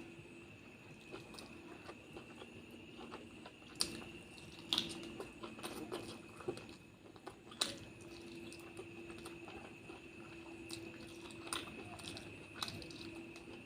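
Close-up eating sounds of a person chewing and biting a meal of curry and rice, with wet mouth smacks and sharp clicks scattered through, the loudest about four and seven and a half seconds in. A faint steady high whine runs underneath.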